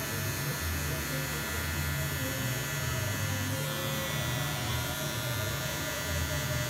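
Electric hair clippers running with a steady low hum while trimming short hair at the back of the head and neck.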